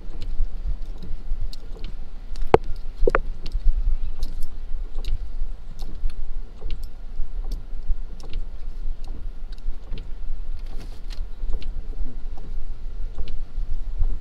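Inside a Pontiac Vibe rolling slowly: a steady low rumble of the car in motion, with scattered small clicks and rattles, two louder knocks about two and a half to three seconds in.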